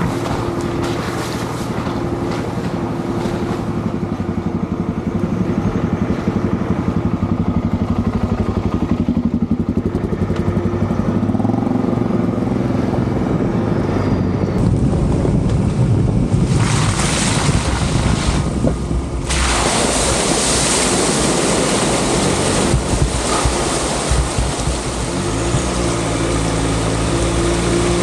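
A 4WD ute's engine running steadily as it drives along a dirt track, heard from a camera mounted outside the vehicle. A loud rushing hiss joins in about sixteen seconds in, drops out briefly, then carries on.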